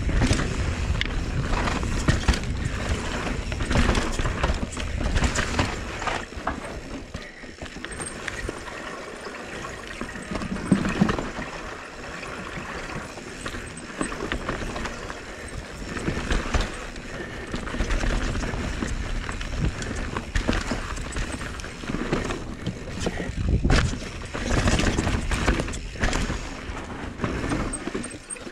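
Norco Sight mountain bike ridden fast down a dirt singletrack: a constant rush of tyre noise over dirt and roots, with the bike rattling and knocking over the bumps in quick, irregular clatters.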